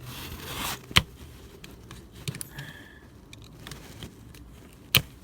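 Metal clicks and light scraping as a small screwdriver presses the release catches inside a seat-belt buckle. There are two sharp clicks, one about a second in and one near the end.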